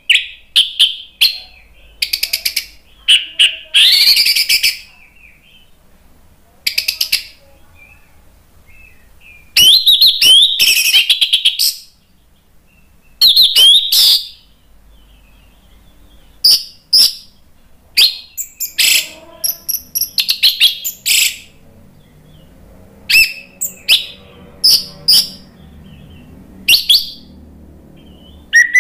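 Orange-headed thrush (anis merah) singing in a cage: loud phrases of clear gliding whistles and fast chattering trills, given in bursts with short pauses between them.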